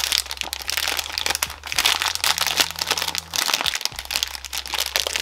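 Plastic wrapper of a Nuts chocolate bar being pulled open and crinkled in the hands: dense, continuous crackling.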